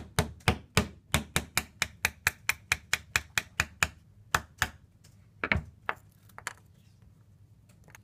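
Rapid knocks of a plastic tube rack striking the spine of a Victorinox Camper pocket knife's blade, batoning it down through a thin stick of wood, about three blows a second for some four seconds, then a few spaced blows.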